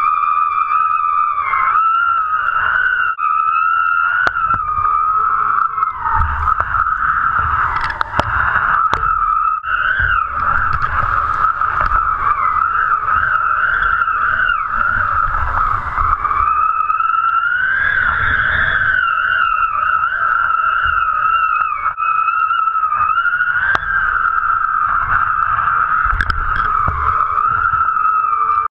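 Wind whistling over a GoPro rigged on a kitesurfing kite's lines: one steady high whistle with overtones that wavers a little in pitch, over low wind buffeting on the microphone.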